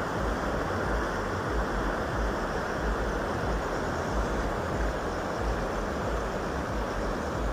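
Steady rush of a river in flood, fast muddy water running high along its bank, with an uneven low rumble of wind buffeting the microphone.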